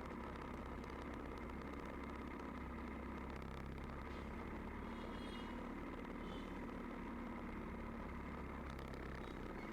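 Royal Enfield Bullet's single-cylinder engine running steadily as the motorcycle climbs a wet mountain road.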